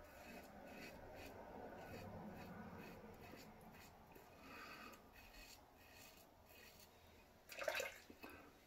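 Italicao open-comb safety razor scraping through lathered three-to-four-day stubble in short repeated strokes, faint. Near the end a brief, louder rush of noise.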